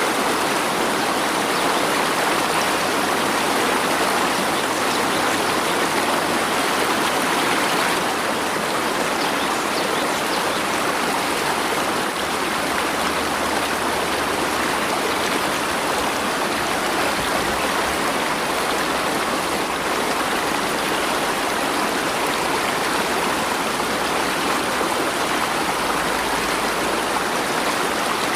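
Steady, even rushing of flowing water, like a stream, with no breaks or distinct splashes.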